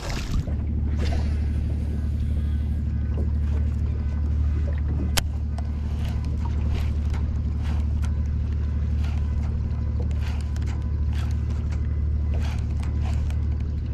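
Steady low hum of the small boat's motor, with scattered faint clicks and one sharper click about five seconds in from the baitcasting reel being worked.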